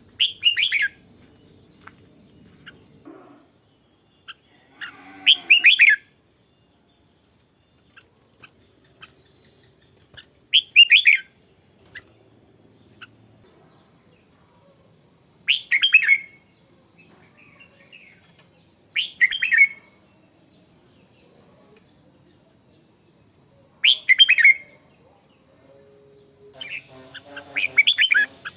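Red-whiskered bulbul singing short, bright chirping phrases, about seven of them spaced four to five seconds apart, over a steady faint high-pitched whine.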